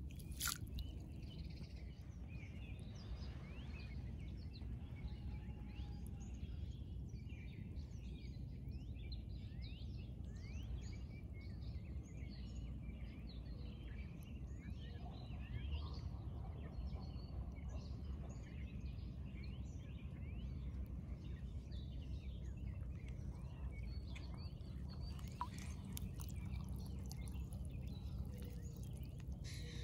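Many small birds chirping and calling over a steady low rumble, with a sharp click right at the start.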